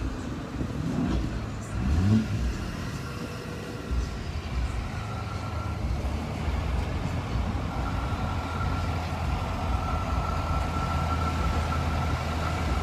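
Cars and trucks driving past close by. One engine revs up about one to two seconds in, then a steady low engine drone carries on, with a thin steady whine over it from about eight seconds in.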